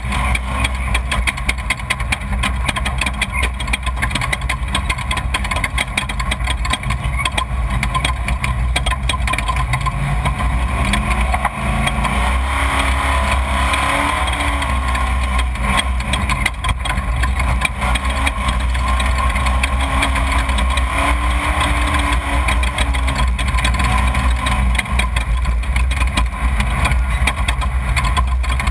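Off-road race vehicle's engine running, heard loud and rough with wind and ride noise on an onboard camera's microphone. The engine pitch rises and falls a few times partway through.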